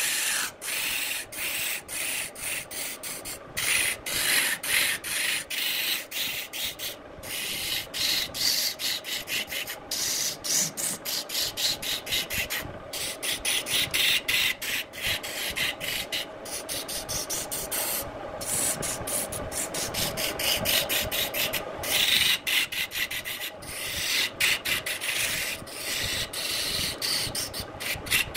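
Turning tool cutting a spinning wooden vase blank on a wood lathe: a continuous rough scraping hiss that flutters rapidly as the edge bites, with shavings flying off.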